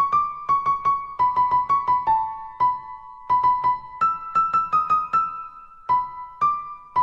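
Background music: a light keyboard melody of short, struck notes in quick runs, with brief pauses between phrases.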